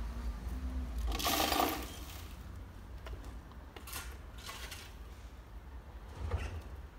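A long-handled garden tool scraping and clinking against gravelly ground: one longer scrape about a second in, then a few short scrapes.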